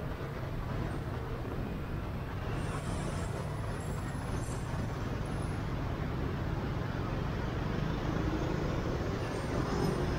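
Motorbike riding in city traffic: steady engine and road noise that slowly grows louder.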